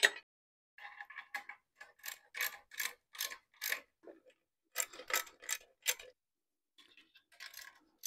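Hand socket ratchet clicking in short runs while it drives in the bellhousing-to-engine bolts, with pauses of about a second between runs.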